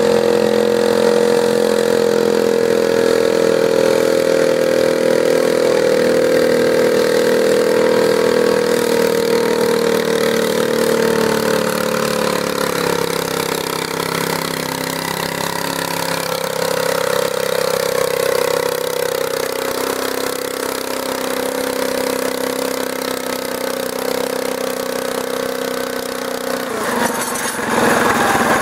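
Garden pulling tractor's engine running loud and steady. Its pitch drops slowly through the middle, and near the end the sound changes abruptly and gets louder.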